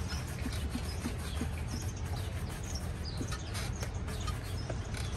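Steady low hum of outdoor street background noise, with a few faint high chirps.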